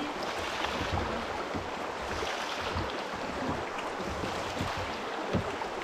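Rushing water of a shallow, rocky river rapid, with splashes from kayak paddle strokes close by.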